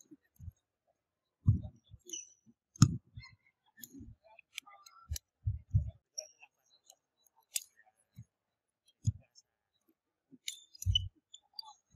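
Badminton rally: sharp clicks of rackets striking the shuttlecock, heard at uneven intervals, with players' footfalls thudding on the wooden court floor.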